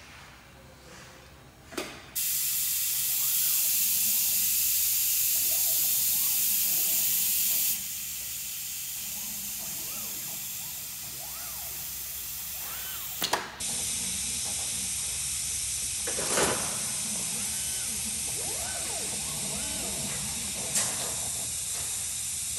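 ST Robotics R12 robot arms' stepper motors whining faintly, rising and falling in pitch as the arms move, over a steady loud hiss, with a few sharp clicks. The hiss starts with a click about two seconds in.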